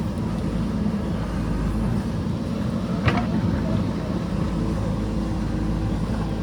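JCB backhoe loader's diesel engine running steadily while at work, with a single sharp clank about three seconds in.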